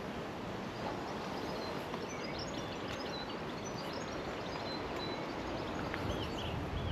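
Steady rushing outdoor noise, with small songbirds chirping and twittering in quick high notes from about a second and a half in.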